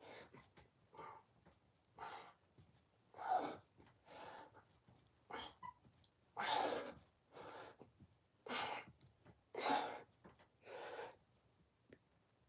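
A man breathing hard with exertion while doing dips, one sharp, noisy breath about once a second.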